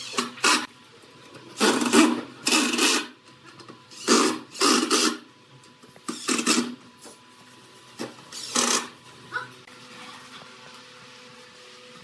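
Cordless impact driver driving screws into pallet boards in about seven short bursts of half a second each, stopping about nine seconds in.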